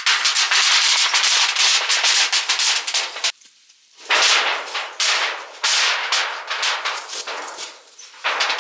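Dense crackling and crunching of dry leaves and gravel on the tent floor as gear is handled and moved over them. It stops briefly a little over three seconds in, then resumes.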